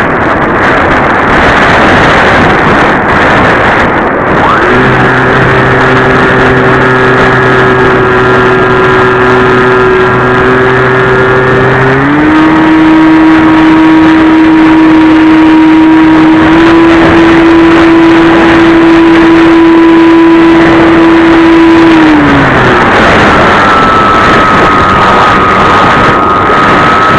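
Loud wind rush from the airflow over a radio-controlled Easy Star II glider, with the whine of its small electric propeller motor held at steady throttle settings. The whine changes pitch about halfway through and cuts out a few seconds later, and a higher steady whine comes in near the end.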